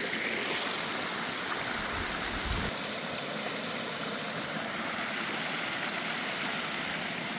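Waterfall and stream water rushing steadily, with a brief low thump on the microphone about two seconds in.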